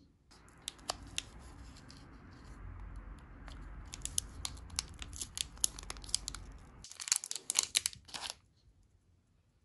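Small plastic candy-kit packet crinkling in the hands and being torn open, with a dense burst of sharp crackling about seven seconds in.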